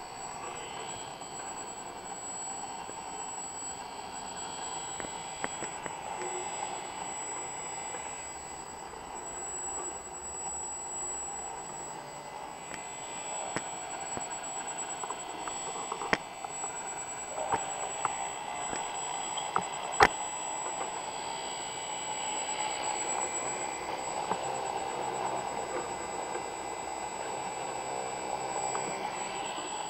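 Homemade CNC engraver running: its small DC-motor spindle whines steadily as the bit cuts into clear acrylic, with a constant high-pitched electrical whine. A few sharp clicks stand out, the loudest about two-thirds of the way through.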